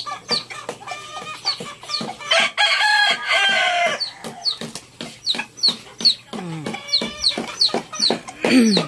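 Native chickens clucking, with a rooster crowing once from about two seconds in to about four seconds in, over a steady run of short, high, falling chirps.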